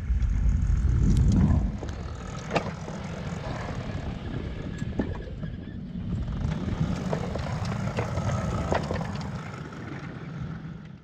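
A 7¼-inch gauge miniature railway locomotive rolling slowly on steel rails, its wheels clicking now and then over a bolted fishplate joint. A loud low rumble fills the first second and a half, then the running settles to a steadier low rumble.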